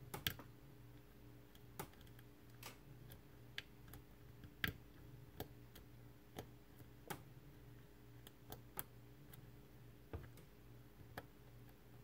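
Faint, irregular metallic clicks of a hook pick working the pins inside an Assa Twin 6000 lock cylinder held under tension, with a few louder clicks as pins are pushed and set, over a low steady hum.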